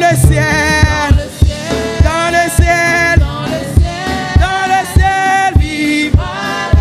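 Live gospel-style worship singing of a French hymn: a woman's lead voice with two women singing backing parts, over band accompaniment with a steady drum beat.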